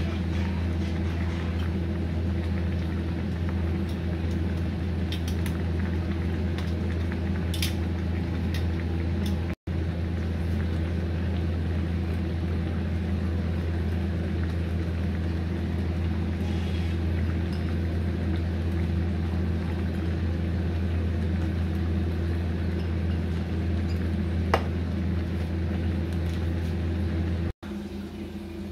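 A steady low machine hum, with a few light metallic clinks of utensils against a steel pan.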